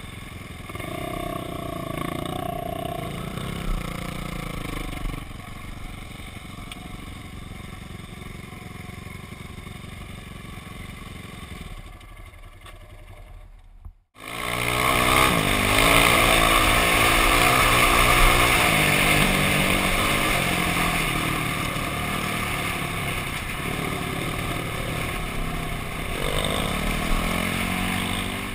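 Dirt bike engines idling for the first half. Then, after a sudden cut about halfway, it is much louder: a Kawasaki dirt bike being ridden, its engine revving up and down.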